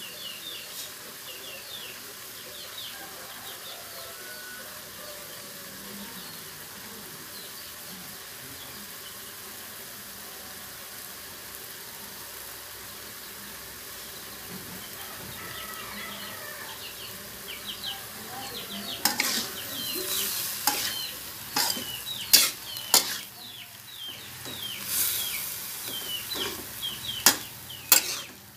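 Stir-fried mustard greens and egg simmering and sizzling steadily in a wok as their liquid comes to the boil. About two-thirds of the way in, a spatula starts scraping and knocking against the wok as the food is stirred.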